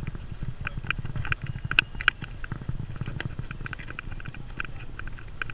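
Footsteps on asphalt, a few sharp clicks and slaps a second as people walk, over a steady low rumble.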